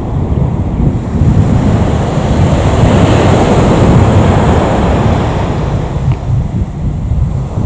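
CFM56 jet engines of an Airbus A321 at taxi power, heard from behind: a steady rushing rumble with a thin high whine on top, swelling towards the middle and easing off near the end.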